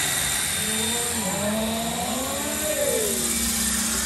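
Radio-controlled scale Black Hawk helicopter flying low past: a steady high-pitched motor whine over the beat of its rotor, with the pitch sliding up and down as it passes.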